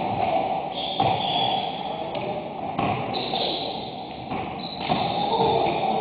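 A basketball bouncing and thudding on a hardwood gym floor, about five sharp knocks ringing in the large hall, with a few short high squeaks over a steady background din.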